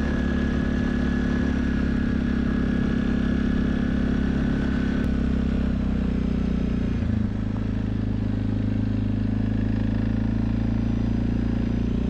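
Off-road vehicle engine running steadily while driving, its note changing about seven seconds in.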